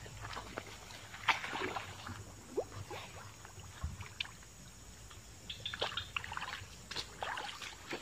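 Feet splashing through shallow muddy swamp water as a person wades, in irregular bursts.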